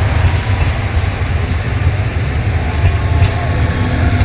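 Passenger train cars rolling slowly past on the rails, a steady low rumble.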